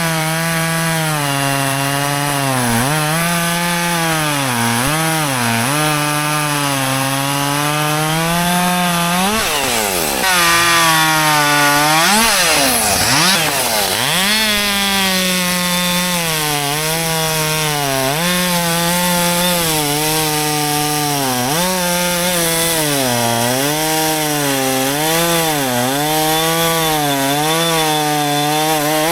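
Husqvarna 564 XP two-stroke chainsaw running at full throttle in a long cut through thick frozen red oak. Its pitch keeps sagging as the chain loads up in the wood and then picks up again. About ten seconds in it drops deeply and then revs back up.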